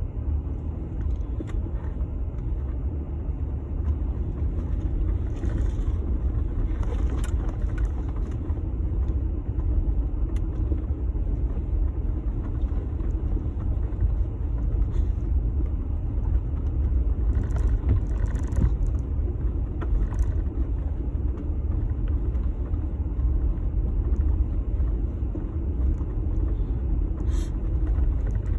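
Jeep Gladiator pickup driving, a steady low rumble of engine and tyres with a few faint clicks now and then.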